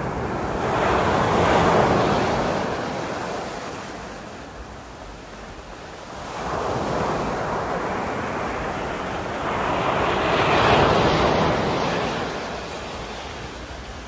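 Sea waves breaking and washing up over a pebble beach, in two surges: one peaking about two seconds in, and a longer one that builds from about six seconds and peaks near eleven. Low wind rumble on the microphone runs underneath.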